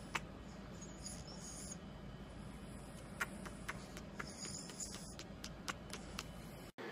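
Faint high-pitched squeaking from a pug, in two short spells a few seconds apart, with scattered small clicks over a low steady hum.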